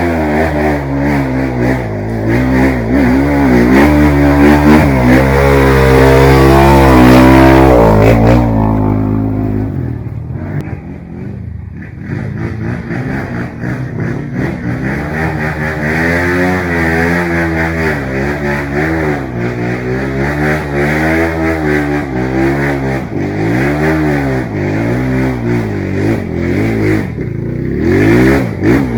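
Trail dirt bike engine revving up and down over and over, its pitch rising and falling every second or so. Loudest in the first eight seconds, easing briefly around ten to twelve seconds in before the revving picks up again.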